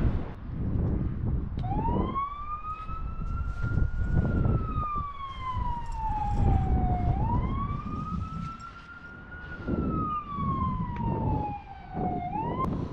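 Emergency vehicle siren wailing, its pitch rising quickly and then falling slowly, two full cycles, starting about two seconds in. Beneath it, a low uneven rumble of wind on the microphone.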